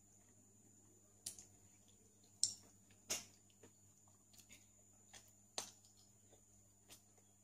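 Soft wet mouth clicks and smacks from eating ripe durian flesh by hand: about half a dozen short, separate smacks, the loudest two about two and a half and three seconds in, over a faint steady hum.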